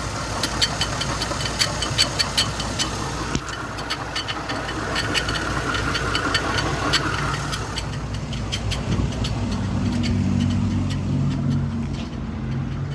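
Chevy Malibu 3.5 L V6 idling, with a rapid, even ticking scrape from the belt and pulley area, which the owner suspects comes from a pulley wobbling back and forth. The ticking fades about eight seconds in, leaving the steady idle.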